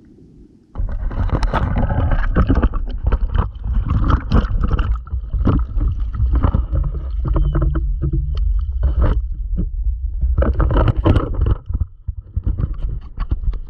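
Water sloshing and gurgling, full of irregular knocks and clicks, starting abruptly about a second in and dipping briefly near the end.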